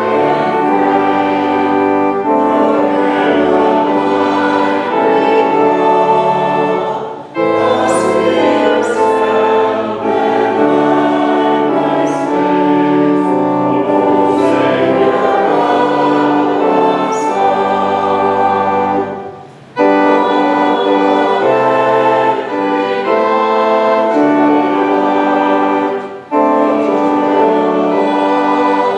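A congregation singing a hymn together, with three short breaths between lines: a little after seven seconds, at about nineteen seconds and at about twenty-six seconds.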